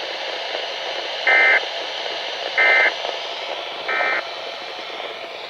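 NOAA Weather Radio SAME end-of-message data signal: three short, shrill digital bursts about a second apart, marking the end of the broadcast alert. A steady radio hiss runs underneath.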